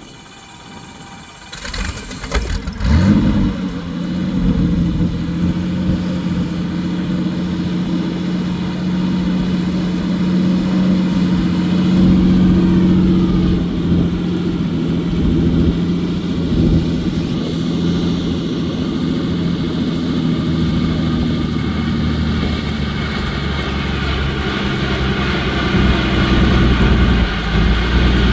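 Helicopter engine start: it catches about two to three seconds in and then runs at a steady pitch, with a faint rising whine around the middle as the rotor spins up.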